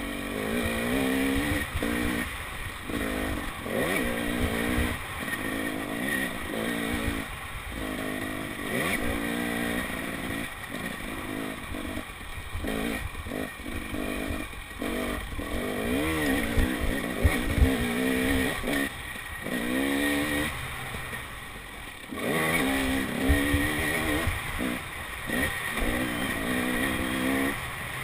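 KTM 300 XC-W's two-stroke engine revving up and down as the dirt bike is ridden along a trail, with short throttle-offs between bursts of power. A few sharp knocks come about two-thirds of the way through as the bike goes over rough ground.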